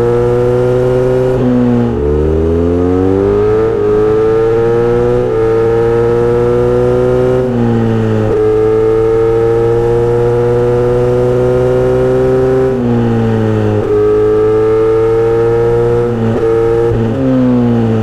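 Kawasaki Z900RS inline-four running through a Misty Kintaro short-pipe muffler with a 70 mm L silencer, under way on the road. The engine note climbs steadily in each gear and drops sharply at each of about six gear changes. Near the end it falls away as the bike slows.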